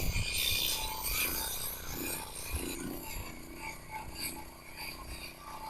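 Small walk-behind concrete saw running as it cuts relief joints into a fresh concrete slab, a steady grinding noise that gradually grows quieter.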